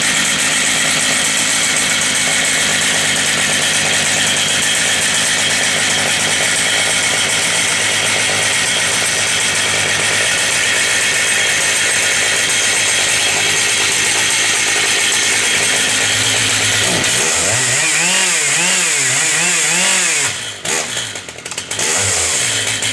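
Stihl MS 880 Magnum, a 121 cc two-stroke chainsaw with a 60-inch bar, running at high speed. The pitch holds steady for most of the clip, then the engine is revved up and down about four times. Near the end the sound breaks up and dips in level.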